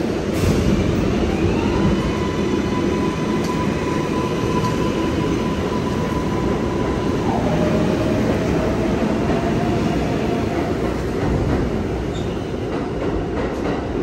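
New York City Subway 4 train running, heard from inside the car: a steady rumble of wheels on rail. Over it a high whine holds one pitch for several seconds, drops suddenly to a lower pitch about halfway through, then fades. A few sharp clicks of wheels over rail joints come near the end.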